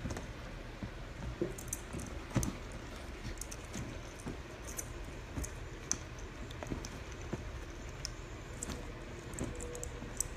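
Old English sheepdog puppy pawing and pouncing at a mechanical ball toy on a fabric dog bed: irregular soft pats and scuffles with scattered light clicks.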